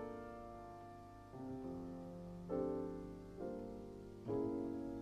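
Slow, quiet piano music. A new note or chord is struck about once a second, and each one rings and fades.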